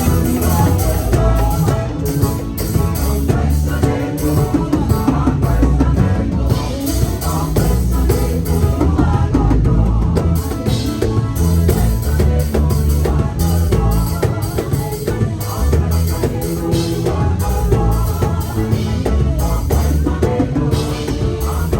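Live church band music with a steady drum-kit beat and deep bass notes.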